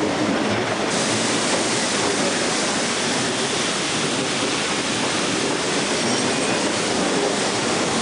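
Kuranda Scenic Railway train running along the track, a steady rush of wheel and carriage noise heard at an open carriage window, growing brighter about a second in.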